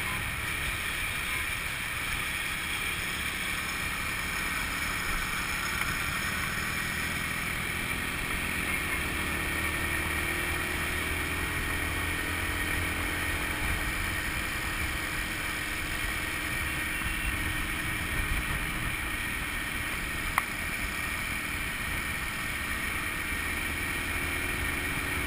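Honda motor scooter running at a steady cruising speed, its small engine hum under a constant rush of wind and road noise on the microphone. One sharp click about twenty seconds in.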